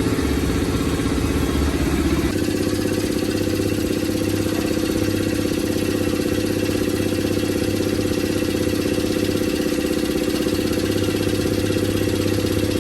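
A motor or engine running steadily as a continuous drone, shifting in tone about two seconds in and then holding steady.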